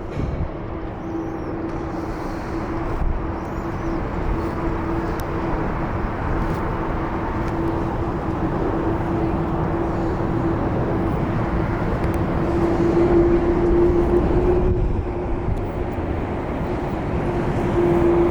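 Jet airliner engines running: a steady noisy hum with one held tone, gradually getting louder.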